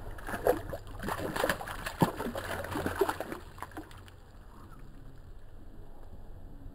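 A hooked traíra thrashing in shallow water at the bank, making a quick run of splashes for about four seconds. After that it goes quieter, with only a few small splashes.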